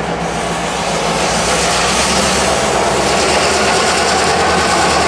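GP38-3 diesel-electric locomotive running steadily as it hauls freight cars past, with a low engine sound under a hiss of wheel and rail noise that builds a little toward the end.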